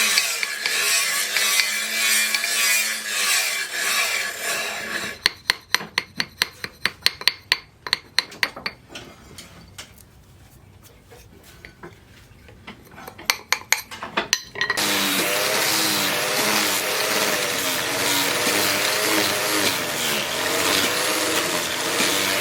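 Metalworking tool sounds: a rough scraping or rasping, then a long series of sharp knocks and taps. About fifteen seconds in, a power tool's motor starts abruptly and runs steadily and loudly.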